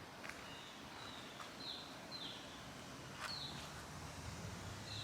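Quiet outdoor background with a bird calling in short, high, downward chirps every second or so, and a few faint clicks.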